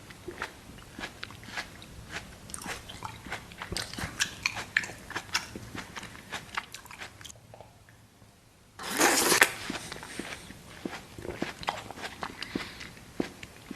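Close-miked eating: crunchy bites and wet chewing clicks, pausing briefly, then a loud, short rushing noise about nine seconds in before the chewing resumes.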